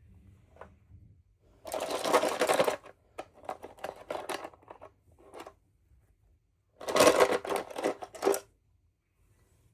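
Two bursts of rapid clicking, each about a second long, with fainter scattered clicks and taps between them.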